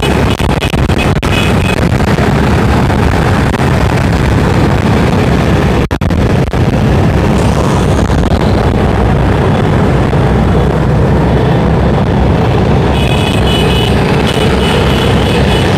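Many motor scooters running together in a convoy, a loud, steady mix of small engines and road noise heard from among the riders.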